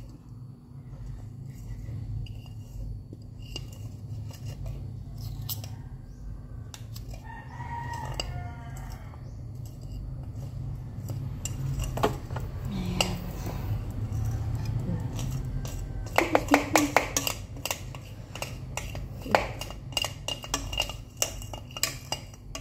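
Metal spoon scraping thick brownie batter out of a plastic mixing bowl into an aluminium baking pan, with a quick run of clinks and taps about two-thirds through. A rooster crows once about eight seconds in.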